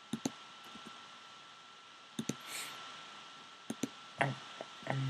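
Sharp clicks at a computer, mostly in quick pairs, repeated several times over a low hiss, with a short low hum near the end.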